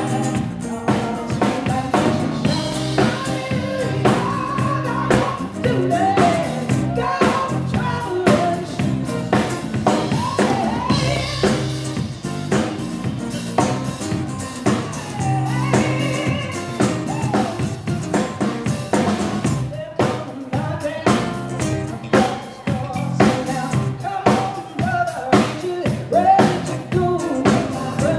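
Live band playing a traditional gospel song: a drum kit keeping the beat on snare and bass drum, with acoustic guitar and a woman singing.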